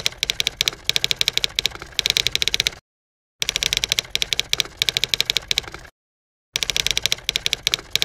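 Typewriter keys striking in rapid runs of clacks, in three bursts that stop dead about three seconds in and again about six seconds in.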